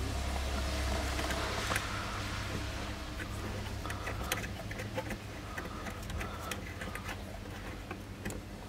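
Small metallic clicks and scrapes of a wrench turning the nut that holds a Tesla Model S horn to its bracket, over a low steady hum.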